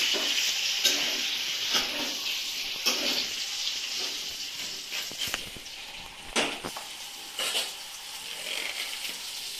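A blunt kitchen knife cutting through watermelon, crunching through the rind, with sharp knocks of the blade and fruit against a steel plate about once a second, then a few more near the end. A steady hiss lies under it throughout.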